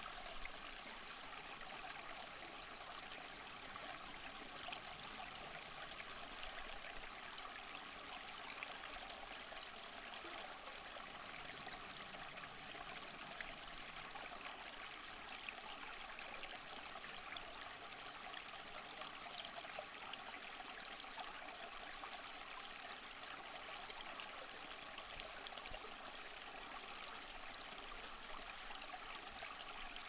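Running water, like a stream, making a steady, even rush.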